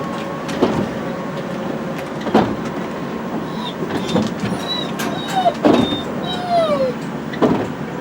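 Steady running noise inside a motorhome, with a short knock about every second and a half to two seconds, and high squeaky whines and falling squeals near the middle.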